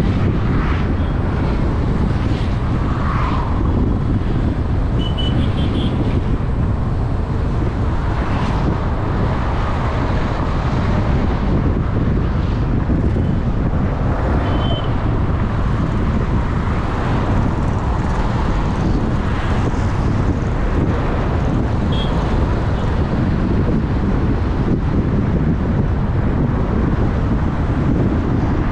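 Steady road and traffic noise from a car driving on a busy city highway, a continuous low rumble, with a few faint, short high beeps now and then.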